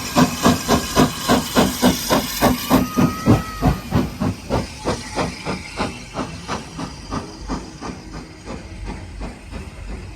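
Standard gauge steam locomotive working hard up a 1 in 13 gradient, its exhaust beats sharp and even at about four a second, fading away over the second half. A brief thin high tone sounds about three seconds in.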